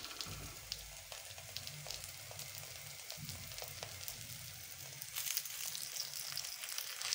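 Makki ki roti (maize-flour flatbread) sizzling on an oiled iron tawa: a soft, steady hiss with small crackles, getting a little louder about five seconds in.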